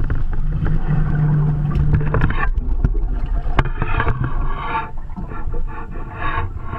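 Water splashing and slapping against the hull of a Hobie Cat Wave catamaran under sail, with wind on the microphone and scattered knocks on the hull. A steady low hum stops about two seconds in.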